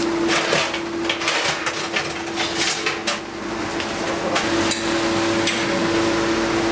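A steady machine hum from bakery equipment, under irregular clattering knocks that come thickest in the first three seconds.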